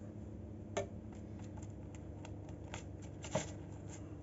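Silicone pastry brush dabbing and stroking oil onto the crusts of freshly baked bread rolls: soft, scratchy brushing with faint ticks, and two louder taps, about a second in and past three seconds.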